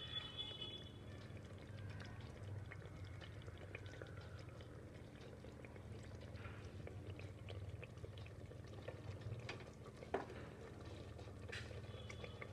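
Thick mutton curry gravy simmering faintly in an open pressure cooker: soft, scattered bubbling pops over a low steady hum.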